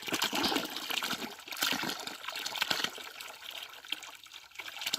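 Spring water running and splashing out of a pipe, a steady flowing trickle that is louder for the first few seconds and softer near the end; the presenter wonders whether the pipe is broken.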